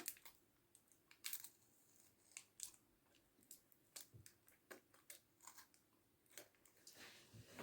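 Near silence, broken by faint scattered crinkles and clicks of a peanut butter KitKat Chunky bar and its wrapper being handled and bitten into.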